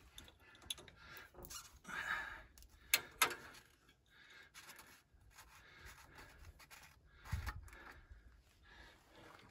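Faint metal clicks and scraping as a hand wrench works the transmission fill plug on a Kubota L2501 tractor's rear housing. Two sharp clicks come about three seconds in, and a dull knock follows a few seconds later.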